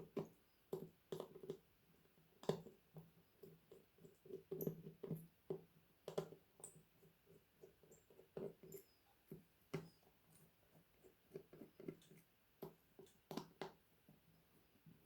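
Faint, irregular small clicks and taps of repair tools and plastic and metal phone parts being handled while a smartphone is taken apart.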